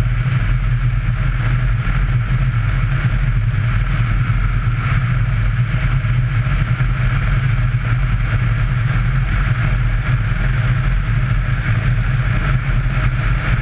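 Yamaha Ténéré motorcycle engine running at a steady cruise, with a deep, even drone and the rush of wind over the microphone.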